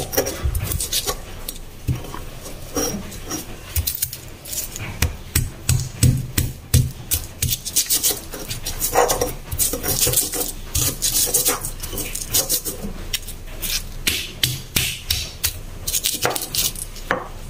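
Stone pestle (ulekan) pounding and grinding fresh spices (shallots, garlic, chillies) in a stone mortar (cobek): repeated, irregular knocks of stone on stone with scraping strokes between them.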